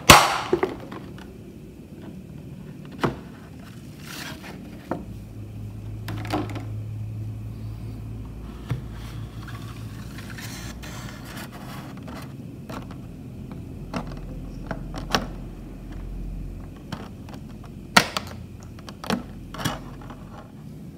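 Clear plastic blister packaging being pried off and handled: a loud plastic crackle right at the start, then scattered sharp clicks and taps with soft crinkling in between.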